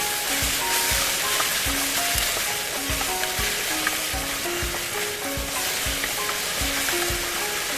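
Food sizzling as it fries in a pan, over background music with a steady beat.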